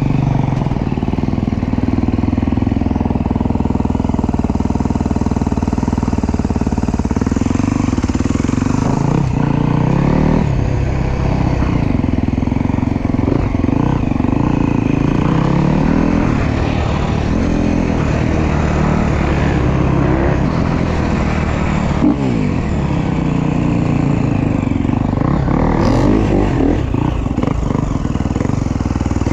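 Enduro dirt-bike engine being ridden, its pitch repeatedly rising and falling as the throttle opens and closes, with wind on the microphone.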